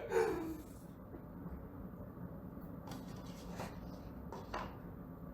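A young man with hiccups: a short falling vocal sound trails off right at the start, then a quiet room with a few faint, brief rustles.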